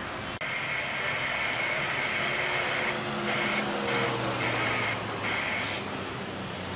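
Boeing 787 airliner on final approach with gear down: a steady jet engine whine over a low engine hum. The high whine drops out briefly a few times in the middle.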